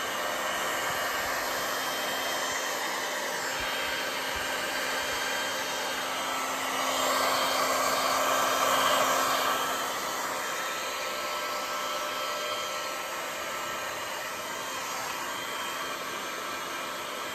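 Electric heat gun blowing steadily on its low fan setting at about 500 degrees, used to pop bubbles in freshly poured epoxy resin. It gets louder for a few seconds in the middle as the gun passes close.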